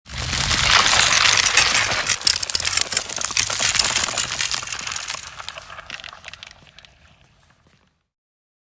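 Ice cracking and splitting: a dense run of sharp crackles and snaps that starts suddenly, holds for about five seconds, then thins out and dies away.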